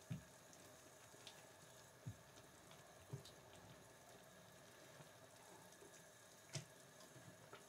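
Near silence: a wooden spatula knocks softly against a pan four times as a pan of tteokbokki and instant noodles is stirred, over a faint steady hiss.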